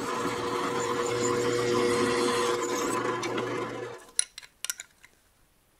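Drill press running, its bit cutting a bolt hole through a collar and 1/8-inch steel plate, with a steady motor tone and hum. About four seconds in it stops suddenly, followed by a few faint clicks.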